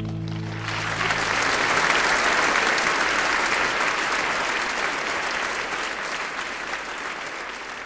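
Audience applause breaking out at the end of a live song as the last guitar chord dies away. The clapping swells within the first two seconds, then slowly fades.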